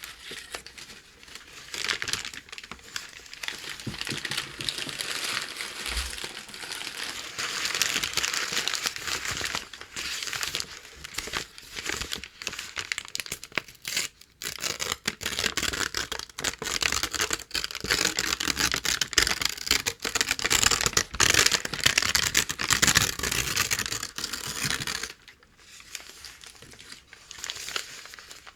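Packing paper crinkled and torn by hand: a continuous scratchy crackle full of fine snaps. It dips briefly around the middle and goes quieter near the end, with a brief low thump about six seconds in.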